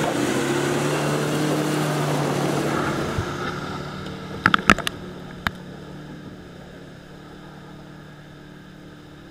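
Land Rover Discovery 2 Td5's 2.5-litre five-cylinder turbodiesel running at a steady speed as the vehicle drives through mud past the camera and away, fading over the second half. About halfway through come a few sharp clicks, mud flung against the camera.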